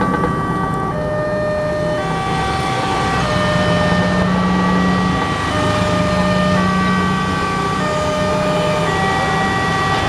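Railway level-crossing alarm sounding with the barrier down: electronic warning tones that step to a new pitch about once a second, in a repeating pattern. Under it is the low running of motorcycle engines waiting at the barrier.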